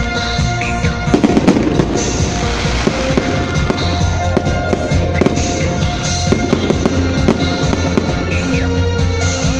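Fireworks going off in rapid bangs and crackles, densest about a second in, over loud music with a steady bass line.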